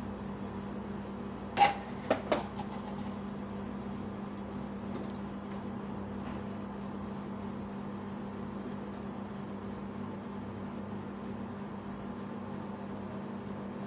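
A steady low electrical hum, and about two seconds in three sharp metallic clinks, typical of a wire grill basket being handled as a raw chicken is laid into it.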